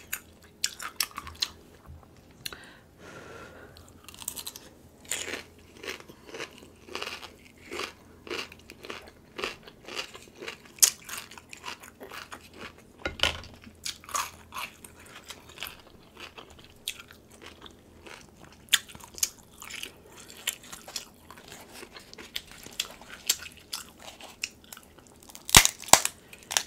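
Close-miked chewing and crunching as cucumber dipped in butter sauce and crab meat are eaten, with soft clicks and crackles throughout. Near the end come a few sharp cracks, the loudest sounds here, as a king crab leg shell is snapped apart by hand.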